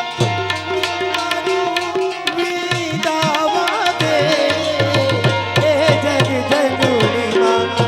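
Instrumental interlude of Gujarati folk music: a hand drum plays a quick rhythm with gliding bass strokes under held chords. About three seconds in, a wavering, ornamented melody line comes in on a melodic instrument.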